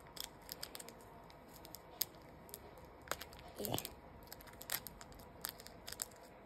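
Fingers picking and pressing at a tightly sealed, plastic-wrapped trading card pack without getting it open: faint scattered crinkles and clicks, with one fuller rustle and bump a little over halfway through.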